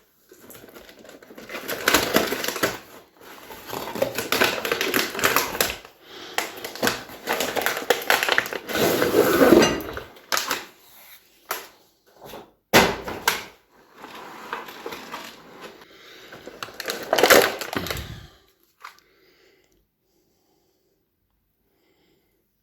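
Plastic soft-bullet toy rifle being handled: rapid clicking and clattering of plastic parts in several bursts, with a few sharp knocks in between.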